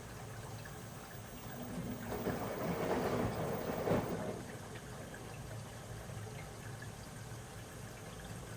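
Washing machine running with a steady low rumble. About two seconds in, a louder swell of water sloshing in the drum builds, then fades again just after four seconds.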